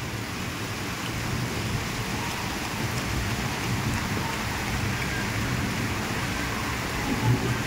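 Heavy rain falling steadily onto a flooded street, a continuous even hiss.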